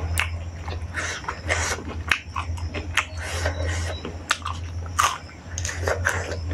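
Close-miked chewing and biting of food, mukbang-style, with many short crisp crunches and wet mouth clicks over a steady low hum.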